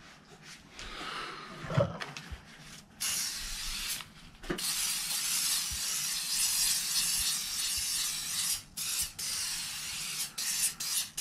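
Aerosol can of cooking-oil spray hissing as oil is misted into a plastic pier-cap mould as a release agent. The spray is fainter at first, then a long steady hiss from about three seconds in, broken by a few short pauses near the end.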